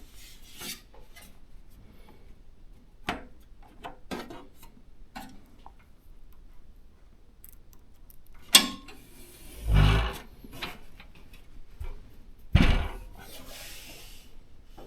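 Hands working on PC parts during assembly: scattered light clicks and taps, a sharp click a little past halfway, then two short scraping rubs of hard parts against each other.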